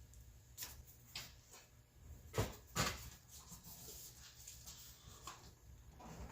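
A few scattered sharp clicks and knocks of plastic car door-panel parts being handled, the two loudest close together about halfway through.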